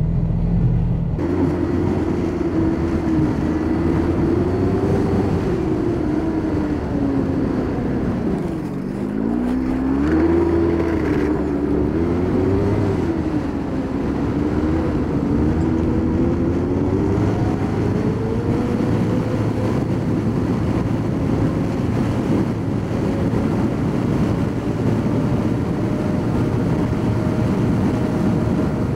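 Snowmobile engine running under way, its pitch rising and falling with the throttle. It dips to its lowest about eight seconds in, then climbs and holds a higher, steadier note through the last third.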